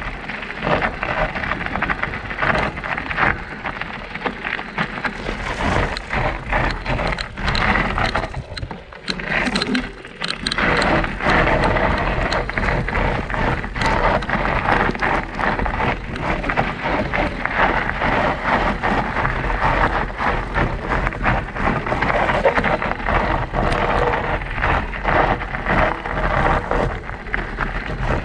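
Mountain bike tyres rolling over loose gravel and stones on a descent: a dense crunching crackle full of small clicks and knocks. It dips briefly about nine seconds in.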